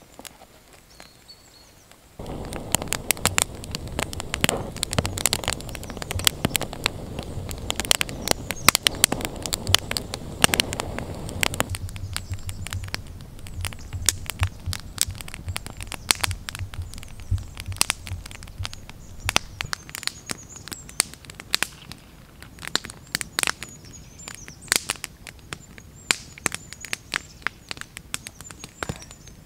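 Campfire of dry conifer twigs and split logs crackling, with many sharp pops and snaps. The fire grows louder about two seconds in, with a low rush under the crackle that fades about halfway through.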